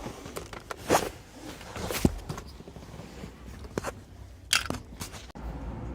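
Plastic wiring connector clips being pried and pulled loose by hand behind a steering-wheel airbag: a few separate sharp clicks and short scrapes.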